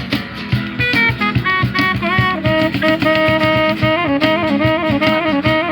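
Rock band playing an instrumental passage: a sustained lead melody line that steps and wavers in pitch over a steady drum beat.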